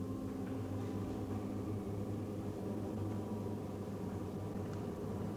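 A faint, steady low hum with hiss, and a few tiny clicks.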